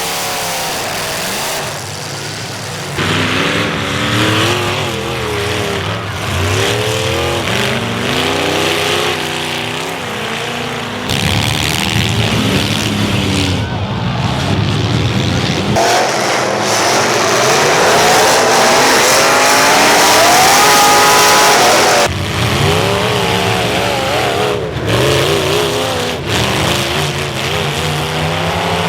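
Demolition derby cars' engines revving hard, their pitch climbing and dropping over and over, with the sound jumping abruptly several times as clips are cut together.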